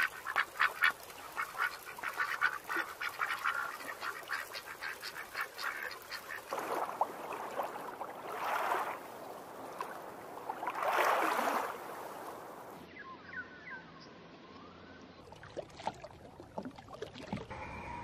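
Ducks quacking in quick runs of short calls, then two louder rushing swells about eight and eleven seconds in. Faint chirping bird calls follow near the end.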